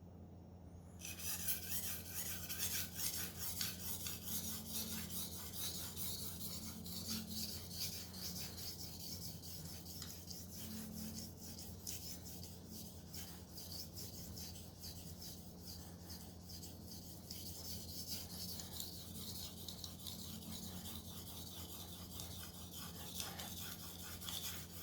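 Steel knife blade stroked rapidly back and forth on a 400-grit whetstone, a fast, steady, rhythmic scraping that starts about a second in. This is the refining stage after the coarse stone, working the edge once a burr has been raised.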